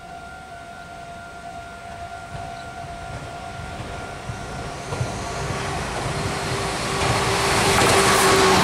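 Meitetsu 1800 series and 1200 series electric multiple unit approaching and passing: rail running noise builds steadily from faint to loud over the last few seconds, with a steady whine under it. At the start a sustained high tone fades away over the first few seconds.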